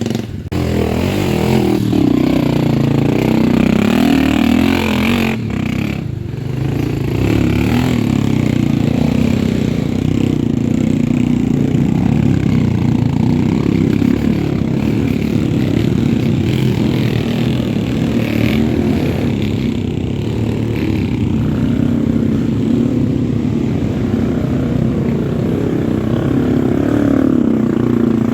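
Motorcycle engine running steadily under way on a rough road, its pitch and loudness shifting a little as the rider works the throttle.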